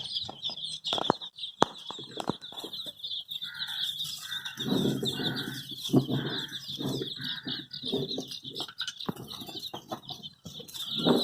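A brood of baby chicks peeping continuously in dense, high-pitched chirps, with a few sharp clicks in the first two seconds and lower, noisier rustling between about four and a half and nine seconds in.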